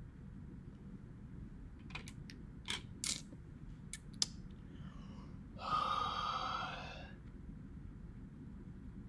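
Several sharp clicks and taps from handling an iPod Video's small parts, then a rasping scrape lasting about a second and a half.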